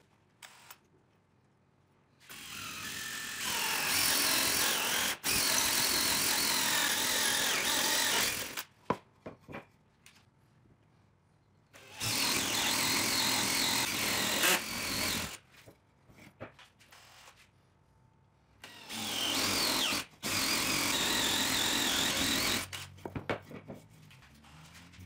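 Cordless drill boring three holes through a hardwood block with Forstner bits: three separate runs of several seconds each, the first the longest, with small handling knocks in the pauses between.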